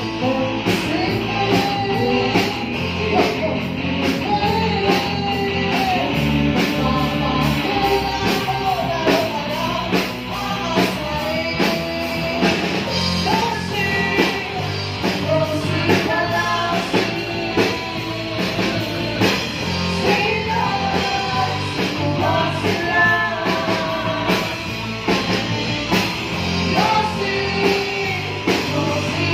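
Live rock band playing a song: several singers on microphones with electric guitars, bass and a drum kit keeping a steady beat.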